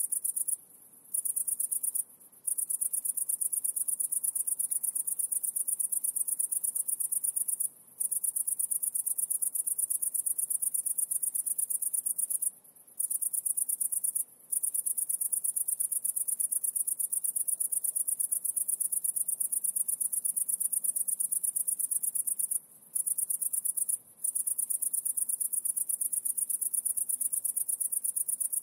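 Insects trilling: a continuous, rapid, very high-pitched pulsing that breaks off briefly about seven times.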